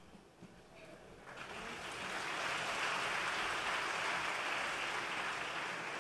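Audience applause that starts a little over a second in after the choir's last note has died away, swells and then holds steady.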